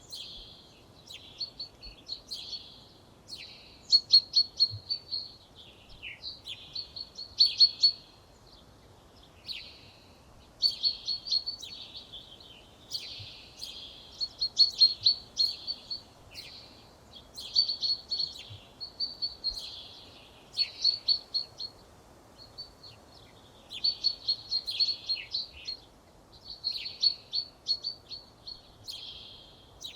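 A songbird singing in short, rapid, high-pitched phrases, one every second or two with brief pauses between, over a faint steady outdoor background.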